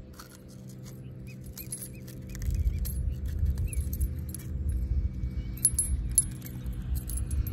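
Fishing pliers and the metal treble hooks and blade of a spinner lure clicking and clinking as the hooks are worked free of a catfish's mouth: scattered light metallic ticks and jingles. A low rumble comes in about two seconds in.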